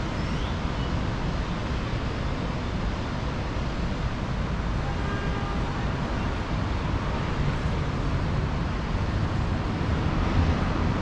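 Steady outdoor rush of wind and road traffic, heaviest in the low end, with no distinct events standing out.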